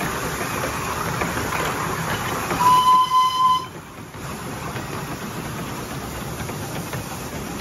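A 10¼-inch gauge steam locomotive running slowly on the track, sounding its whistle once for about a second near the middle. Its running is quieter after the whistle.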